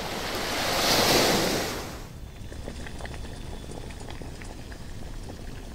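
A rush of noise swells and cuts off about two seconds in. Then a stainless-steel saucepan of water at a rolling boil bubbles steadily, with many small pops.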